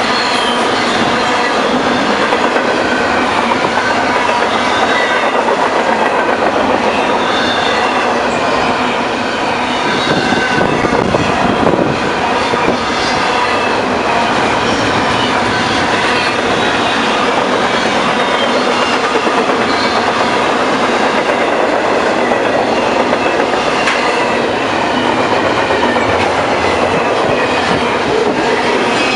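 A train rolling past close by: a steady rumble of wheels on the rails with clickety-clack over the joints and a wavering high squeal from the wheels.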